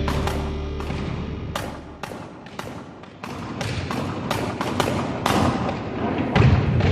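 Repeated sharp knocks of flooring nailers being struck to drive staples through maple gym flooring into the subfloor, coming irregularly, several a second.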